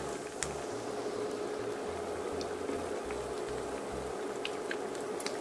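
Potato patties deep-frying in hot oil: a steady sizzle and bubbling with scattered sharp pops, over a steady low hum.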